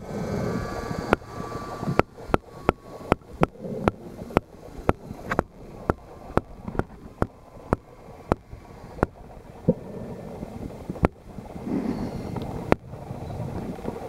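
Underwater sound in a swimming pool: a muffled low rumble with a run of sharp, irregular clicks, about two or three a second through the middle and fewer near the end.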